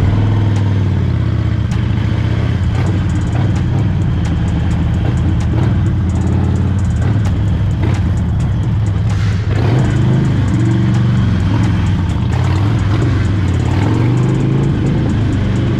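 Cruiser motorcycle's engine running steadily while under way, the revs rising and falling a little in the second half.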